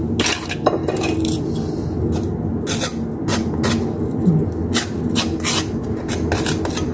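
Table knife scraping butter across a slice of toast in quick repeated strokes, a few a second.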